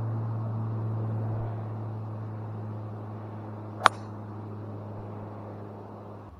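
Driver striking a golf ball off the tee: one sharp, very short crack about four seconds in, over a steady low hum that slowly fades.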